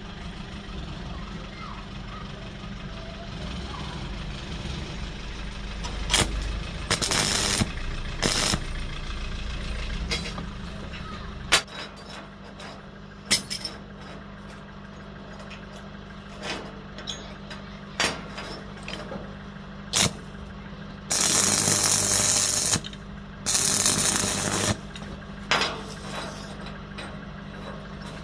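Metalworking shop sounds: sharp knocks and clinks of steel parts being handled, over a steady machine hum that stops about halfway through. Near the end come two loud hissing, crackling bursts of a second or so each.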